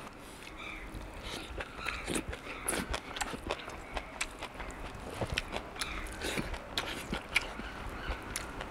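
Eating sounds: chewing and mouth smacks, with irregular small clicks of a spoon and fingers against plates as rice and curry are mixed by hand.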